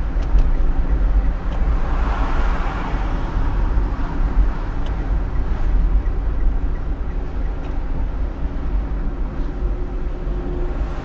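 Road vehicle on the move: a steady low engine and road rumble, with a brief swell of hiss about two seconds in.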